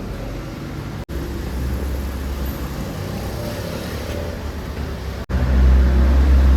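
Stick welding with an E6013 rod: a steady low welder hum under the hiss and crackle of the arc, broken twice by brief cuts and louder after the second one.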